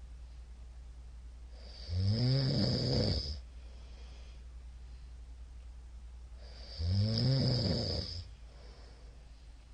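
A middle-aged man snoring loudly in his sleep: two long snores about five seconds apart, each a rattling tone that rises and falls in pitch with a hiss over it.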